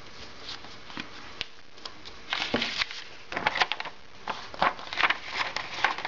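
A folded sheet of A4 paper being unfolded by hand: scattered rustles and crackles of the paper, sparse at first and busier from about two seconds in.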